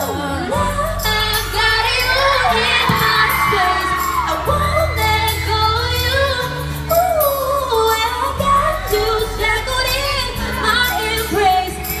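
Women's voices singing live into microphones, amplified through a concert PA, over sustained low bass notes that change about every two seconds.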